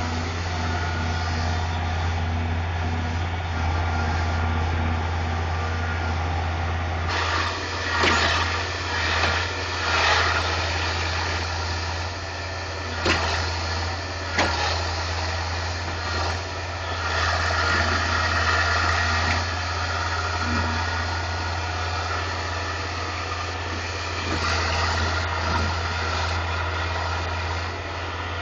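Caterpillar 225 hydraulic excavator's diesel engine running steadily, with several sharp knocks over the middle of the stretch.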